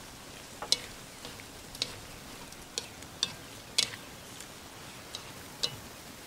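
A utensil stirring sliced pig's tongue in a metal wok, striking and scraping the pan in sharp, irregular clicks, over a faint steady frying sizzle.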